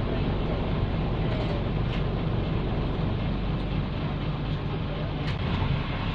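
Cabin sound of a bus running along with its PE6H diesel engine at a steady note, with road noise and a few faint rattles.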